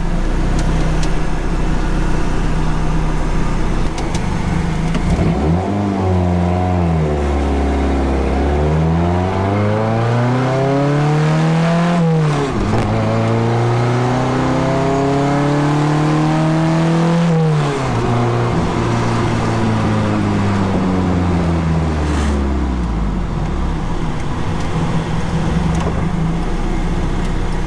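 Mazda BP 1.8-litre four-cylinder in a swapped Opel GT, heard from inside the cabin, running unboosted with its turbo disconnected. It runs steadily at first, then the pitch climbs as the car pulls away. It drops sharply at a gear change about twelve seconds in, climbs again, and falls away as the car eases off and slows.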